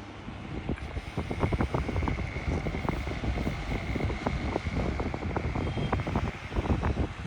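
Airflow from a Walton Tornado five-blade electric fan running at a raised speed, buffeting the microphone as gusty wind noise that grows louder about a second in, with a faint steady whine underneath.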